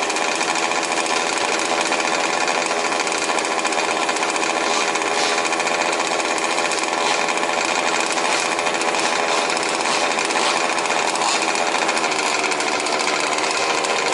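Several 1/5-scale RC trucks' small two-stroke petrol engines running at once, a steady, dense, rapid buzzing of overlapping engine pitches.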